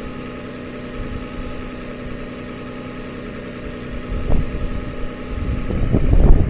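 2007 Lexus ES350's 3.5-litre V6 idling steadily during an alternator charging test. Low rumbling noise builds up over the last second or two.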